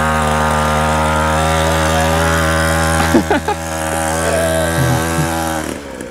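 Small 50cc two-stroke pit bike engine running under way at steady revs, a buzzing drone that briefly drops off near the end.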